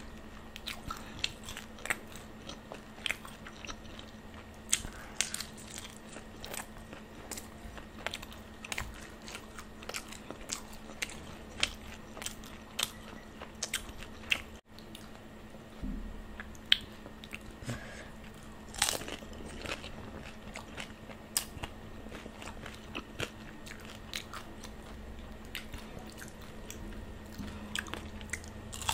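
Close-miked biting and chewing of crisp golgappe (hollow fried puri shells): many sharp, irregular crunches with wet chewing between them, over a faint steady hum.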